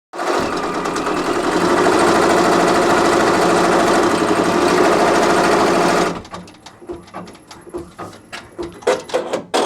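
Baby Lock Alliance embroidery machine stitching at speed for about six seconds, then a quieter stretch of quick irregular clicks, with loud running again near the end.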